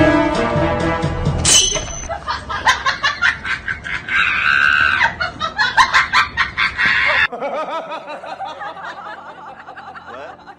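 Background music that breaks off about one and a half seconds in, followed by a person laughing in rapid repeated bursts. After an abrupt change about seven seconds in, quieter chuckling continues.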